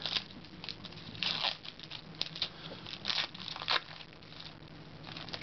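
Trading cards being flipped through by hand: a series of short, irregular papery rustles and slides as cardboard cards are moved against one another.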